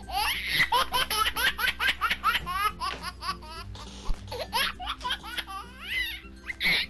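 High-pitched giggling laughter, a quick run of short rising and falling notes, over background music.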